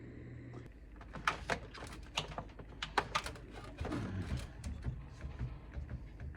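Irregular light clicks and taps of small hard objects being handled, a dozen or so spread unevenly, the sharpest a little after one second in and at about two and three seconds in.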